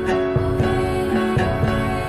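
Instrumental Naga folk-fusion background music: plucked strings over a steady held note.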